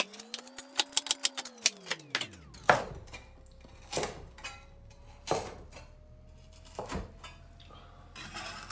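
Meat cleaver chopping crispy fried pork belly on a wooden cutting board. A quick run of about a dozen chops comes in the first two and a half seconds, then single chops about every second and a half.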